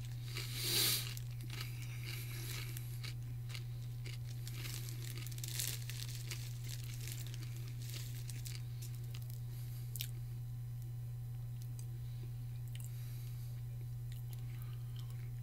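Faint crunching and chewing of puffed pork rinds, with a louder crunch about a second in and a few light ticks after, over a steady low hum.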